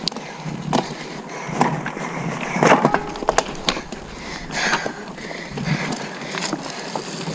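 Mountain bike ridden over rough trail: tyres and frame rattling and knocking, with rushes of the rider's hard breathing about once a second.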